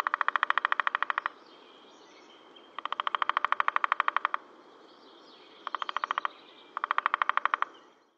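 A bird gives rapid rattling calls in four bouts: quick, even clicks about fifteen to twenty a second, with fainter chirps between the bouts.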